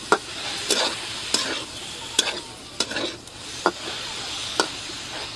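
A metal spatula stirring onions dry-roasting without oil in a kadai, scraping and knocking against the pan every second or so over a light sizzle.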